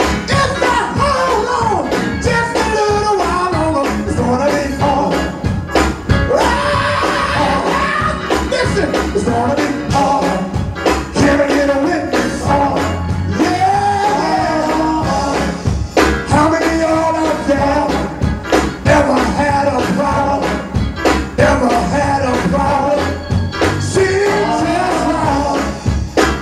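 Gospel band music with singing over a steady drum beat.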